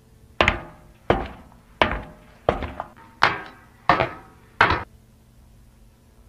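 Heavy pounding on a wooden door: seven loud thuds, evenly spaced about two-thirds of a second apart, each dying away quickly, then they stop.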